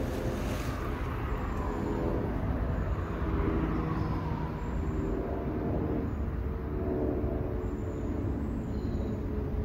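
Steady low rumble of traffic on the bridge overhead, with one passing vehicle whose pitch falls slowly a few seconds in.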